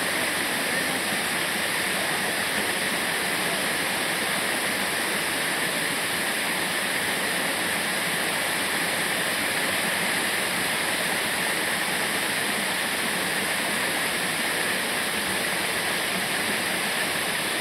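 Waterfall: water falling and splashing in a steady, unbroken rush, bright and hissy.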